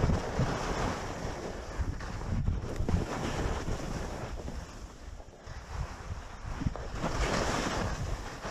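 Wind buffeting the microphone of a moving skier, with the hiss of skis carving across groomed snow swelling and fading with the turns.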